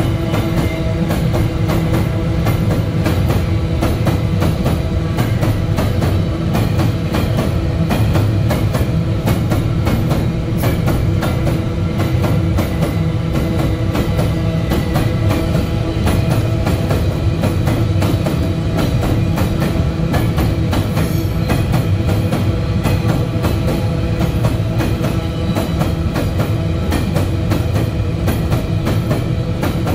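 A long train of empty steel ore wagons rolling past at speed, its wheels clicking over the rail joints in a rapid, steady rhythm over a continuous rumble.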